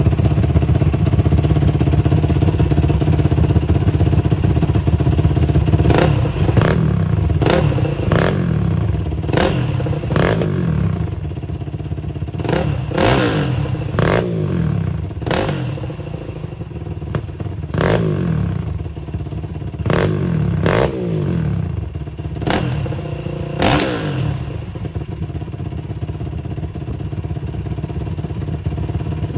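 Motorcycle engine idling, blipped again and again from about six seconds in: a quick rev followed by the revs falling back to idle, about fifteen times in under twenty seconds, then settling back to a steady idle.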